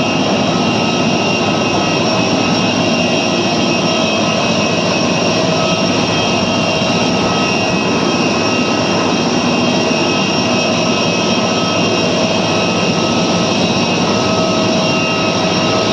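Jet airliner's engines running steadily: a constant rush of noise with several high, steady whining tones, unchanging throughout.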